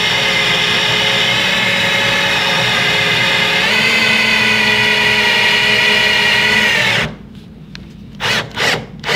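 Cordless drill spinning a Grabit screw extractor bit into the head of a rusted slotted screw, a steady motor whine as the bit grinds through the head and throws metal shavings. The pitch steps up slightly a few seconds in, and the drill stops suddenly about seven seconds in, followed by a few short knocks.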